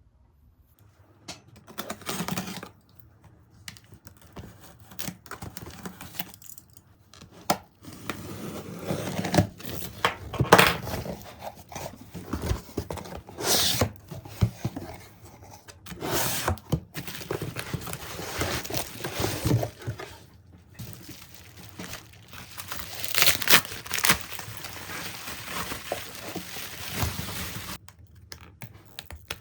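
Crinkly wrapping material being handled and torn: irregular rustling and tearing, some strokes louder than others.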